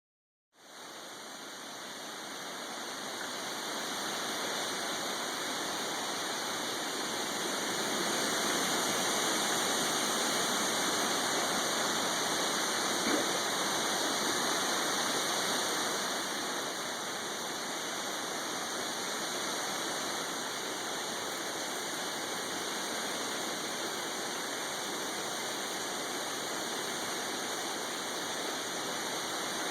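Steady rush of falling or running water, an even hiss that swells slightly toward the middle and eases a little past halfway, with one brief tick about 13 seconds in.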